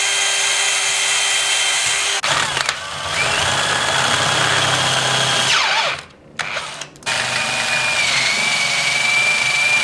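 Cordless drill boring into a PVC plastic fitting, first with a small pilot bit and then with a larger bit. The motor whines steadily in several runs with short breaks between them, winding up and down, and dips briefly in pitch under load in the last run.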